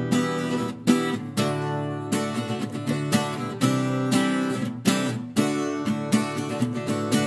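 Background music on strummed acoustic guitar, with sharp strokes about twice a second.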